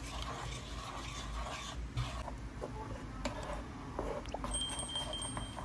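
Wooden spatula stirring and scraping through a hot chili sauce in a nonstick frying pan, a steady soft noise dotted with small clicks. A brief high tone sounds near the end.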